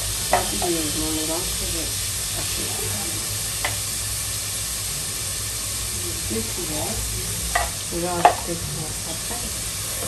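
Tomato and chopped vegetables sizzling steadily in hot sesame oil in a pot while they are stirred with a wooden spoon. A few sharp clicks of the utensil against the pot come near the start, a little before the middle and twice near the end.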